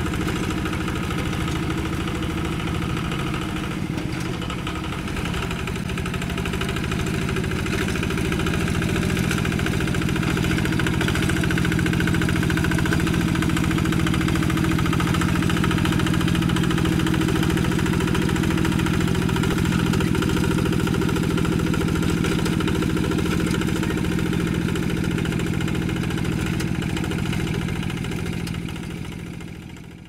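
Single-cylinder Kubota diesel engine of a two-wheel hand tractor running steadily while it pulls a plough through a wet paddy. It gets a little louder about a quarter of the way in, then fades out at the end.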